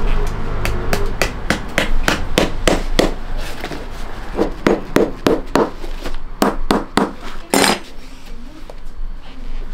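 Rapid hammer taps on the leather upper of a handmade hiking boot being lasted, about four a second at first and then slower and heavier. A short burst of scraping noise comes near the end.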